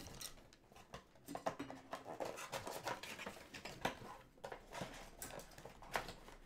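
Cardboard and plastic packaging of a trading-card mega box being handled and opened by hand: irregular crinkles, rustles and light taps.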